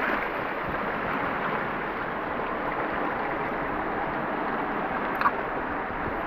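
Steady rushing and sloshing of sea water, with one sharp click about five seconds in.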